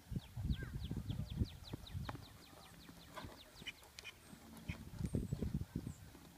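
An Oldenburg gelding's hooves thudding dully on sand arena footing at a trot, in two spells of beats. Over the first half a bird sings a quick run of falling chirps.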